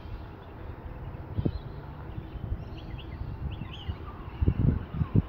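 Small birds chirping in short faint calls over a low outdoor rumble, with a run of louder low thumps near the end.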